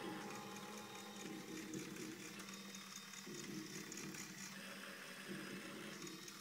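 Small LEGO electric motors of a model drill press running with a faint whine. Its pitch steps to a new level every second or so.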